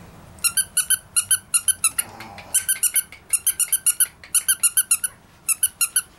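A squeaky toy squeezed again and again: high-pitched squeaks in quick runs of about six a second, with short breaks between the runs.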